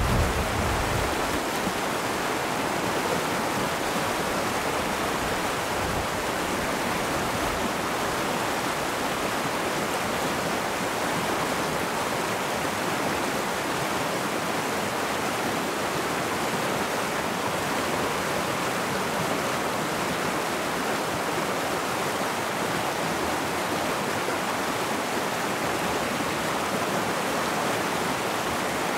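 A shallow mountain stream rushing and splashing over a low rocky rapid: a steady, even rush of water.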